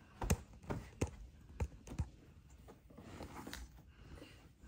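Irregular sharp taps and clicks, about five in the first two seconds and one more later, from a boxed doll being handled and laid down.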